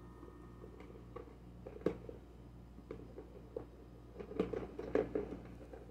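Small fidget toys being handled and set down: scattered light clicks and taps, busiest near the end.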